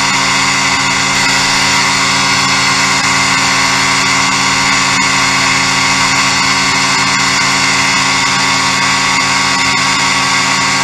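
Ultralight aircraft's engine and propeller running steadily at cruise power in level flight, a constant drone with no change in pitch.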